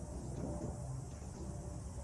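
Steady high-pitched insect chorus, like crickets or cicadas chirring, over a low background rumble.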